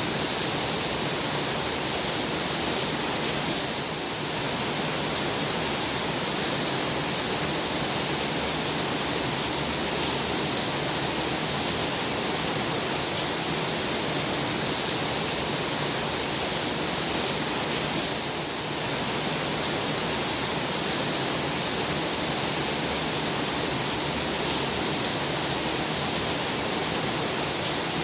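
Heavy rain falling in a steady, dense hiss, with slight dips in strength about four seconds in and again past the middle.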